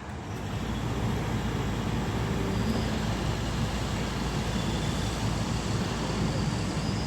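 Steady vehicle noise, like passing road traffic, building a little in the first second and then holding level.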